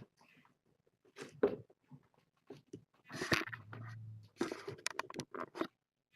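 Kittens moving about, making irregular crunching, scratching and rustling noises in quick short bursts.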